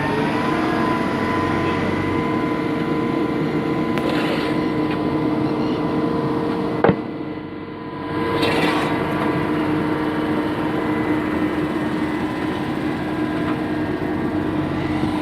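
Engine of a construction boom pump machine running steadily at raised revs, with a steady whine. The pitch settles just at the start after climbing. There is one sharp click about seven seconds in, followed by a brief dip in level.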